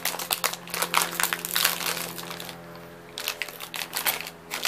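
A plastic snack wrapper crinkling and crackling in irregular bursts as it is handled, with a brief lull a little past halfway.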